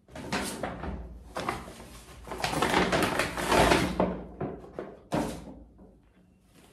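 Stiff paper shopping bag rustling and crinkling as it is handled and a box is pulled out of it, loudest about three to four seconds in, then one sharp knock about five seconds in.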